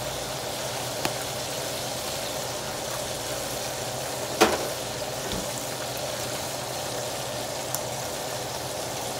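Steady sizzling and bubbling of food cooking in pots on a stovetop. A single sharp knock of a utensil against a pot about four and a half seconds in.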